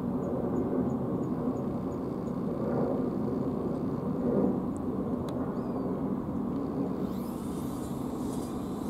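Steady low rumbling outdoor background noise, with faint regular high ticks during the first couple of seconds.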